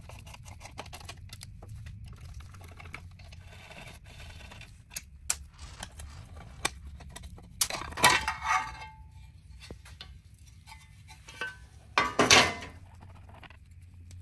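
Bolts being undone with a hex key and the skid plate being taken off: small metallic clicks and ticks, with two louder bursts of clattering about 8 and 12 seconds in as the parts are handled.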